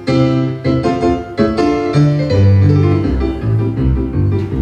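Piano playing an instrumental break between sung verses: struck chords over a bass line that steps from note to note, growing busier about halfway through.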